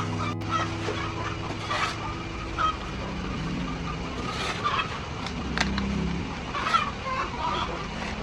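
Chickens clucking in short scattered calls, over a low steady mechanical hum that is strongest in the first few seconds and returns briefly later.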